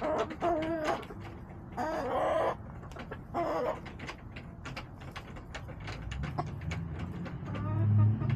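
Backyard hens clucking and calling in three short bursts over the first four seconds, with many sharp taps throughout. A low rumble with a steady hum swells near the end and becomes the loudest sound.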